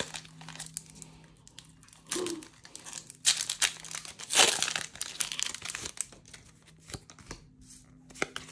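A Pokémon TCG booster pack's foil wrapper being torn open and crinkled by hand, with irregular crackling and clicks that are loudest about three to five seconds in.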